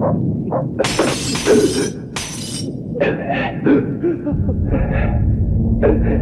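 Halloween sound-effects recording: glass shattering in two crashes about a second in, over a low rumble and drawn-out eerie moaning. A steady low hum joins about four seconds in.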